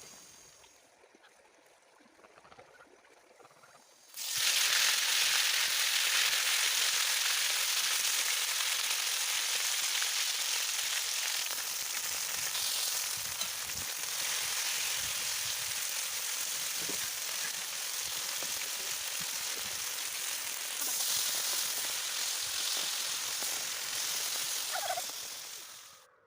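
Lamb meat frying on a saj (iron griddle pan), sizzling loudly in hot fat. The sizzle starts suddenly about four seconds in and then runs on steadily.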